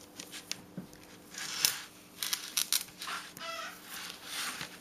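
Soft rustles and small clicks as a Monster High fashion doll is handled, with a few faint, short, wavering chirp-like sounds around the middle.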